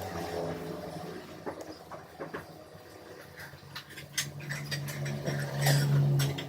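A small CNC machine's stepper motors hum in short moves, with a scatter of sharp clicks from the machine. The hum fades early on and comes back louder about four seconds in, where the clicks are thickest.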